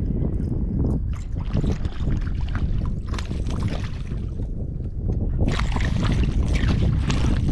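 Wind buffeting the microphone in a steady low rumble, with water splashing and sloshing in stretches.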